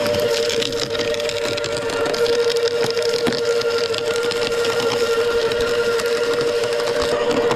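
Wood chipper running steadily while branches are fed through, with dense crackling and snapping of wood being chipped over the machine's hum. Its pitch dips slightly right at the start as it takes the load.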